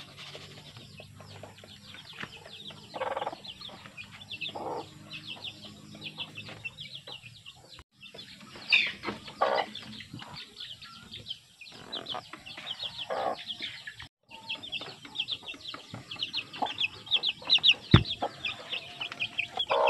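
Chicks peeping in quick, high, repeated cheeps that grow busier in the second half, with occasional lower clucking calls. A single sharp knock near the end as the plastic bottle feeder is set down on the bamboo slat floor of the pen.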